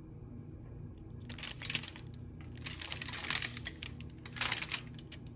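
Aluminium foil crinkling in a few short bursts, about a second and a half, three and four and a half seconds in, as a knife pushes two raw turkey breast tenderloins apart on the foil lining of a pan.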